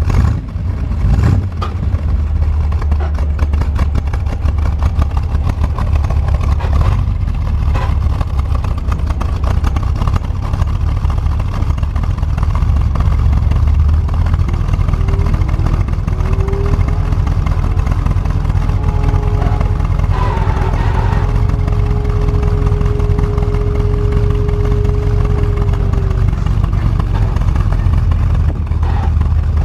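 1969 Corvette V8 running at idle, with a screeching squeal from the clutch/transmission that slides in about halfway through, holds one steady pitch for several seconds and then fades out. The noise came back a day after a new throw-out bearing was fitted, and the clutch fork pivot or the pilot bearing is suspected.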